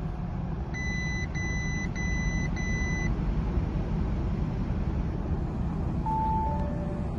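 Bentley Bentayga 4.0-litre petrol V8 idling steadily, heard from inside the cabin. About a second in, the car's warning chime sounds four times, evenly spaced, as the air suspension fault message shows. Near the end a lower two-note chime, high then low, starts as the 'engine running' warning appears.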